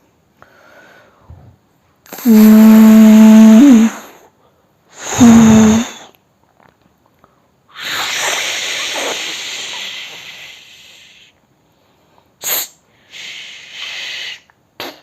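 A man imitating a train with his mouth: a long loud hoot like a train horn, rising slightly just as it ends, then a shorter second hoot, followed by a long hiss that fades away and a few short hissing puffs near the end.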